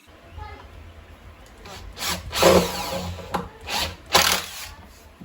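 Power drill working in plywood in several short bursts, over a low steady hum.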